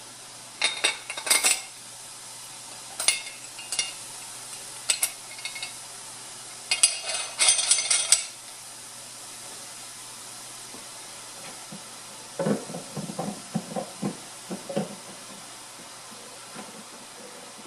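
Metal parts of a Cabela's No. 5 meat grinder clinking and clattering as it is put back together: several groups of sharp clinks in the first eight seconds, then a run of duller knocks about twelve seconds in.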